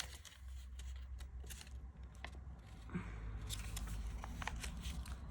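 Paper rustling with light irregular clicks as the pages of a small paper booklet are leafed through, over a steady low hum.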